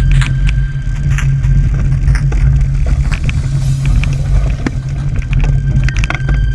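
Motor vehicle running with a steady low rumble, with scattered light clicks and rattles over it.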